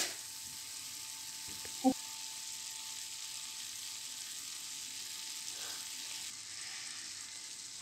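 Chicken, onion and tomato sizzling steadily in hot oil in an open pressure cooker pot, with one light knock about two seconds in.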